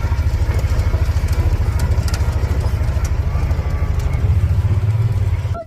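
A motor vehicle's engine running steadily, a loud low pulsing sound that cuts off abruptly near the end.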